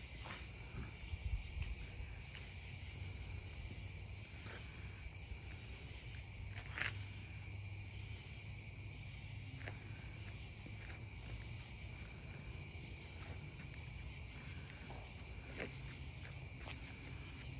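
A steady, high-pitched chorus of night insects, a constant trill, over a low rumble, with a few faint clicks scattered through it.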